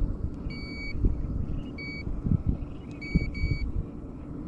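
Hand-held digital fish scale beeping as its buttons are pressed: four short electronic beeps, the first a little longer. Dull knocks from handling sit under them.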